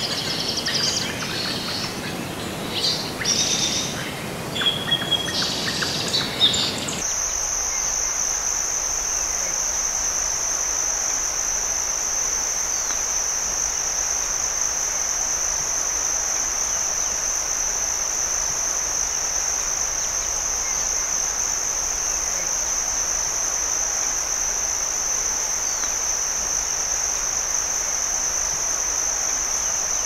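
Birds chirping for about the first seven seconds. Then, abruptly, a steady high-pitched insect drone takes over and holds unbroken over a faint hiss.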